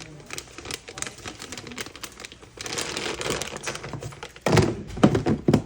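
Objects being handled in a small room: scattered clicks and rustling, then several heavy thumps in quick succession near the end.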